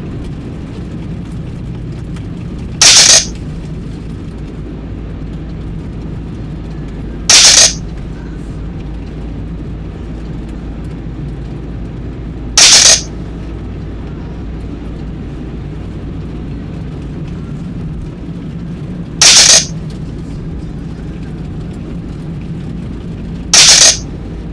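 Steady low rumble of a car driving, heard from inside the car, with five short, very loud hisses a few seconds apart.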